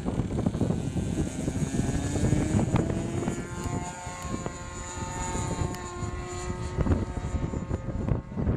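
Radio-control model airplane's engine running in flight, its pitch rising and then holding steady, with heavy wind noise on the microphone.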